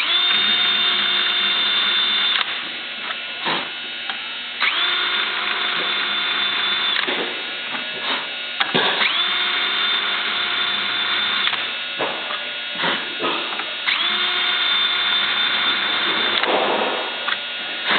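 Rivet shaver cutting a rivet head down flush, run four times for about two and a half seconds each. Each run spins up quickly to a steady high whine, with brief knocks between runs as the tool is repositioned.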